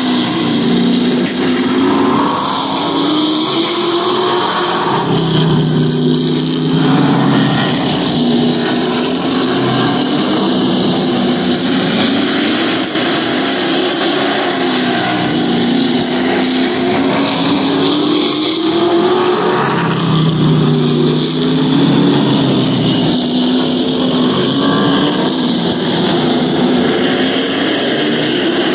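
Pack of Pro Truck race trucks' engines running at racing speed around a short paved oval. The engine note rises and falls in pitch again and again as the trucks accelerate and lift through the laps, with a louder, deeper swell about every fifteen seconds as the pack comes by.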